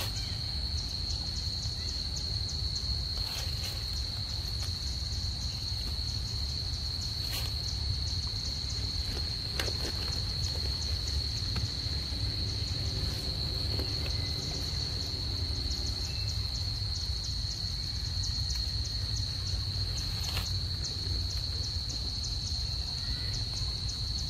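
Steady chorus of insects: one unbroken high, shrill tone with a faster pulsing buzz above it, over a low rumble, with a few faint clicks now and then.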